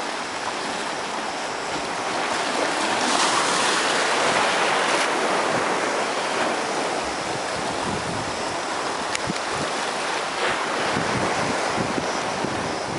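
Small sea waves washing against a rocky shore, with wind buffeting the microphone; the wash swells louder about three to five seconds in.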